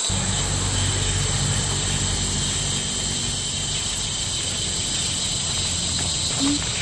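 A steady, high-pitched chorus of insects, with a low rumble underneath that starts abruptly.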